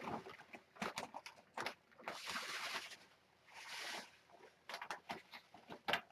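Cat litter being worked with a scoop. There are short gritty hisses of granules sliding and pouring, two of them loudest, between sharp scrapes and clicks of the scoop against the box.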